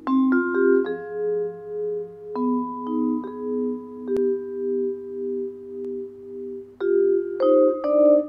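Musser vibraphone played with four mallets in a slow jazz ballad. The sustained notes ring on and overlap, with an even, slow pulsing tremolo from the instrument's motor-driven rotating fans. Several notes are struck in quick succession at the start, a chord is held through the middle, and new notes come in near the end.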